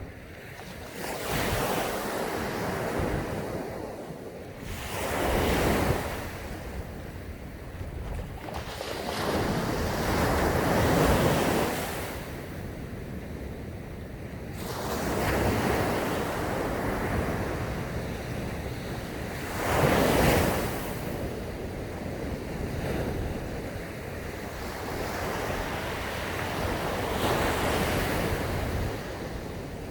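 Sea waves breaking on a sandy beach, about six surges, each swelling and then washing back, the loudest about two-thirds of the way through. Under them runs a steady low rumble of wind on the microphone.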